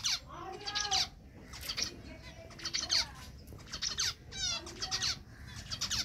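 Male zebra finch singing its courtship song: short phrases of buzzy notes, repeated about once a second, with a quick run of rapid repeated notes about four and a half seconds in.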